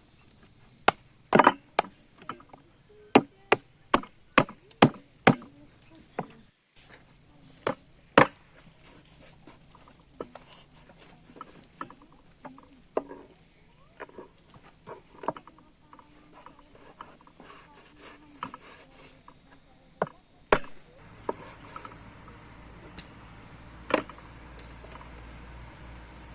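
Chopping with a blade striking wood: a run of about a dozen sharp, separate chops in the first several seconds, then lighter taps and two more hard chops near the end.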